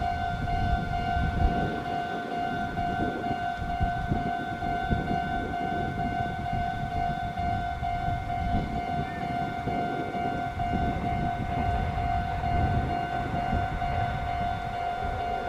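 Railway level-crossing warning bell ringing continuously, a repeating high tone, over a steady low rumble.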